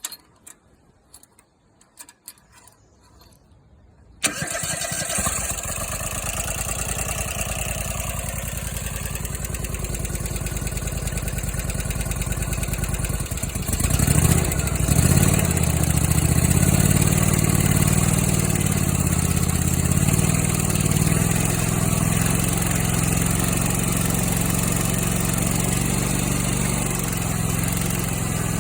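First start of a brand-new Kohler Command Pro ECV749 EFI V-twin engine. After a few light clicks, the starter cranks it from about four seconds in for roughly ten seconds. The engine then catches and runs, its note wavering briefly before settling into a steady idle.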